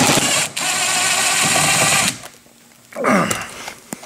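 Power drill/driver spinning a socket on the side-mirror mounting bolt to loosen it, running steadily for about two seconds and then stopping.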